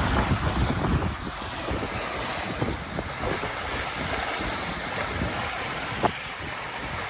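Wind buffeting the microphone and water rushing and splashing along the hull of a Morgan 382 sailboat under sail, heaviest in the first second, with a single short knock about six seconds in.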